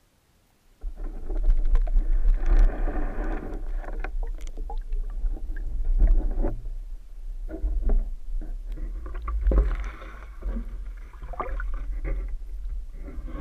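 Water rushing and knocking against an underwater camera's waterproof housing as it is hauled up through the lake and out of the water. It starts suddenly about a second in, with a deep rumble and irregular knocks and surges.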